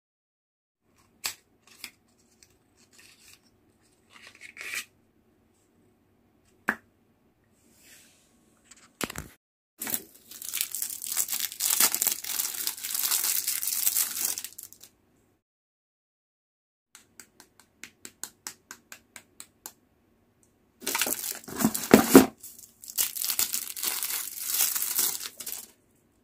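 Plastic packaging crinkling and rustling as a nail kit's small items are handled, in two long spells, one about ten seconds in and a louder one near the end. Between them come scattered sharp clicks and a quick run of light ticks from small plastic cases.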